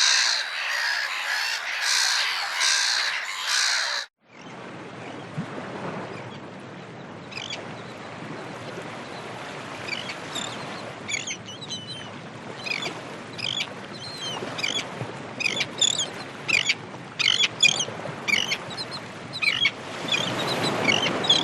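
Gulls calling: for the first few seconds, loud harsh cries repeated about twice a second. Then, after an abrupt cut, a flock's many short, high calls come over a steady rushing background and grow busier toward the end.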